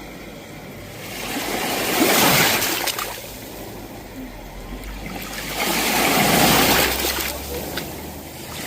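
Sea waves breaking and washing in, the surf hiss swelling and dying away twice, peaking about two and six seconds in.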